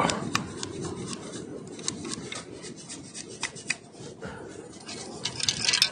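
Long-handled sand scoop digging into beach sand: a steady scraping hiss of sand with scattered sharp clicks, and a brighter, louder rattle near the end.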